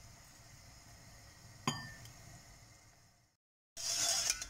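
A single sharp metal clink with a short ring, a steel utensil knocking against the steel saucepan. After a brief cut near the end, a spoon stirs sugar into water in the steel saucepan with a gritty scraping swish.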